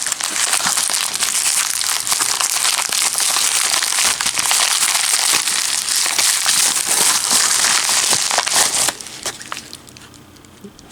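Shipping package being crinkled and torn open by hand, a dense run of crinkles and small crackles that dies down about nine seconds in.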